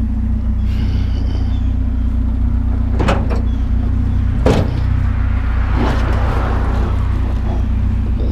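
Pickup truck engine running steadily, with two sharp knocks a second and a half apart and a brief rushing noise near the end.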